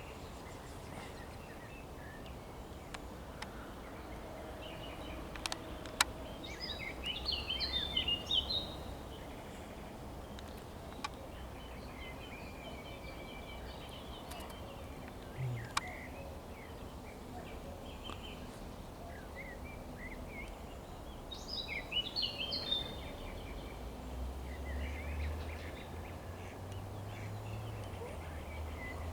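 A songbird singing two short, rapid phrases of varied notes about fifteen seconds apart, with scattered fainter chirps in between. Under it is a steady low outdoor rumble and a few sharp clicks.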